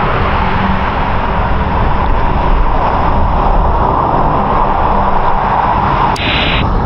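Steady rush of wind and road traffic heard while riding a bicycle on a truck route, with vehicles going by; a sharp click a little after six seconds.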